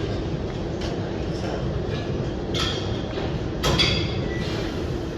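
Steady gym background noise with two short metallic clinks of gym equipment, each ringing briefly, about two and a half and three and a half seconds in.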